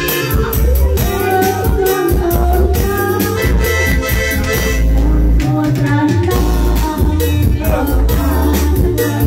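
Electronic keyboard playing upbeat dance music with a steady beat and heavy bass under a melody line.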